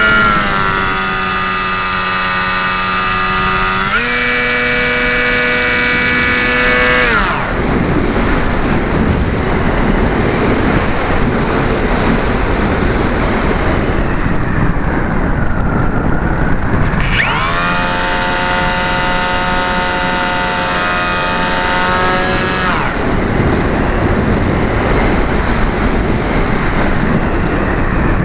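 RC model airplane's motor and propeller whining under power. The pitch steps up about four seconds in, and the motor cuts out about seven seconds in, leaving a steady rush of wind over the onboard camera as the plane glides. The motor comes back on for about five seconds in the middle, then cuts again, and the wind rush carries on.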